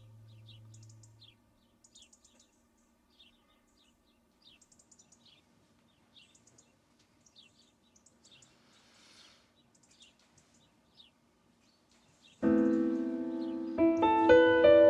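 Faint small birds chirping in quick, scattered high notes. About twelve seconds in, soft piano music comes in, much louder than the birds, with chords changing again a second later.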